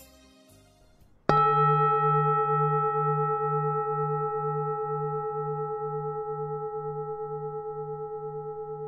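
A singing bowl struck once about a second in, then ringing on in several clear tones with a slow, even pulsing in its low hum, fading gradually.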